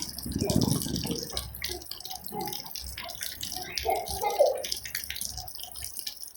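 Water dripping and pattering in quick, irregular drops, put forward as a rain sound.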